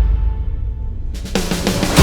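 Background music: a dark, low bass passage with the treble filtered away, then a sudden rising swell about a second in that builds into a loud, full hit at the end.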